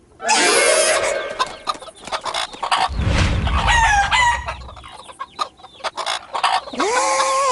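Cartoon chickens squawking, clucking and crowing in a flurry. A low rumble comes in about three seconds in, and a held rising note near the end.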